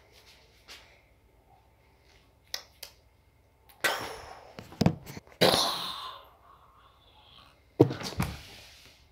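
A few light knocks, then breathy rushes of air close to the microphone, the last starting with a thump.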